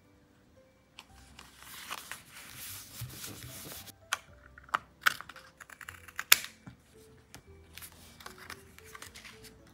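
Paper and sticker sheets rustling as they are handled and peeled, with a few sharp clicks about four, five and six seconds in, over faint soft background music.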